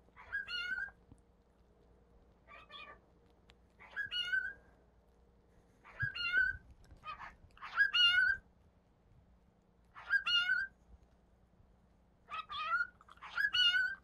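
Male cockatiel calling: short, wavering chirped calls repeated every second or two, about nine in all.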